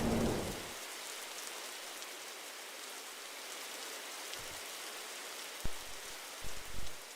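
Air conditioner running with a steady, even hiss of moving air. A low rumble and hum swell at the start and fade within a second, and a few short low knocks come near the end.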